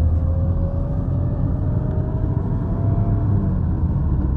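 Steady low rumble of a car on the road, with a faint single tone slowly rising in pitch over the first three seconds or so.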